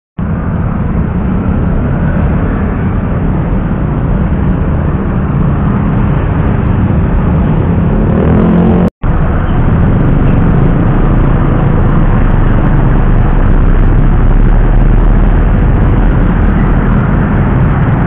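Busy road traffic crossing a railway level crossing: motorcycles and cars running past close by, with one engine revving up just before a cut. After the cut, a city bus and other vehicles crossing over the rails with a steady deep rumble.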